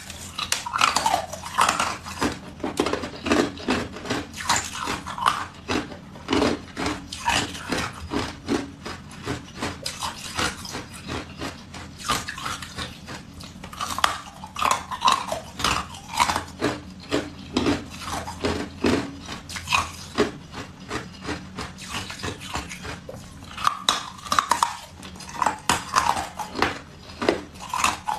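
Blue-dyed ice being bitten and chewed close to the microphone: dense, repeated sharp crunches and cracks in clusters, with short squeaky glides as the ice grinds between the teeth.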